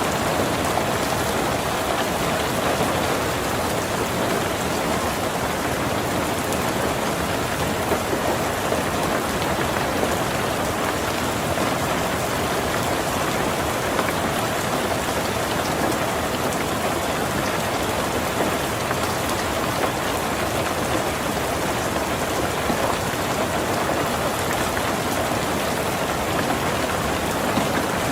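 Heavy rain drumming on a tin roof: a steady, dense patter that stays even throughout.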